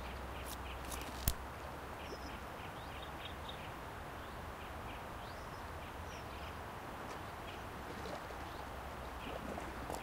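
Faint, short bird chirps repeating over a steady outdoor background hiss, with one sharp click about a second in.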